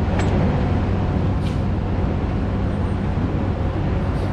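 Steady low rumble of road traffic and vehicle engines, with a few faint ticks.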